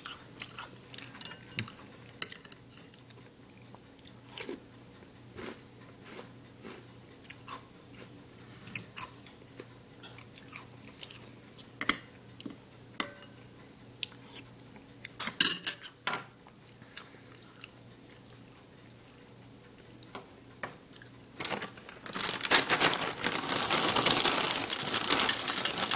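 Crunchy Reese's Puffs cereal being chewed, with scattered short crunches and mouth clicks. About 22 seconds in, the clear plastic cereal bag starts crinkling loudly as it is handled.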